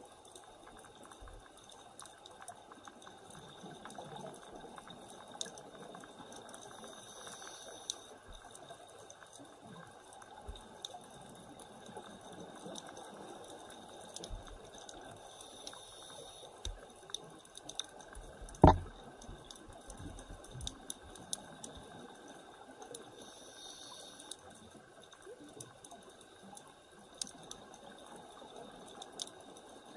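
Underwater ambience picked up through a camera's dive housing: a constant crackle of small clicks over a faint hiss, with one loud sharp knock a little after halfway.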